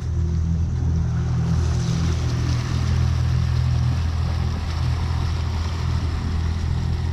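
Wind buffeting an action camera's microphone beside open water: a steady, heavy low rumble with a softer hiss above it.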